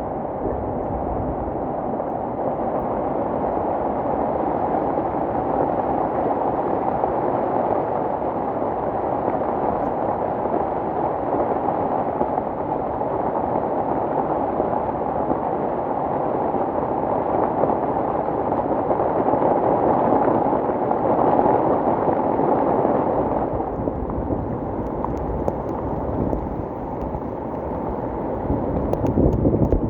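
Rushing floodwater of a swollen mountain river: a loud, steady rush of water that thins out about three-quarters of the way through.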